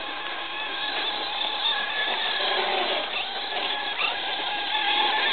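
RC truck's motor whining as it drifts and spins its wheels in wet, heavy snow. The pitch wavers up and down with the throttle, and the whine grows louder toward the end.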